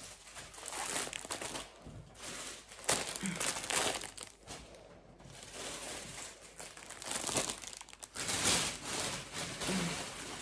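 Packaging crinkling and rustling in irregular bursts as yarn is pulled out of a parcel.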